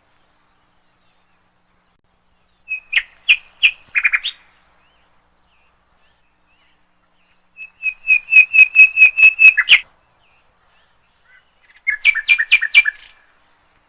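A bird calling in three bursts of quick, repeated chirps, the middle one the longest at about two seconds, with silence between them.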